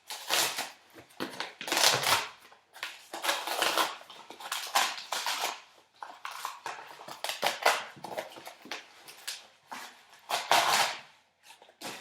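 Packaging rustling and crinkling as a jar of almond butter is unwrapped and taken out by hand, in irregular crackling handfuls with a few sharp clicks.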